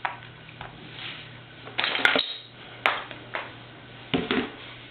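Puzzle pieces knocking and clattering as they are dumped out of the puzzle board, in a few separate bursts about two, three and four seconds in.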